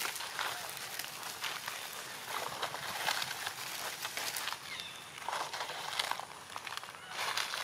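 Dry leaf litter rustling and crunching in irregular bursts under monkeys walking over it.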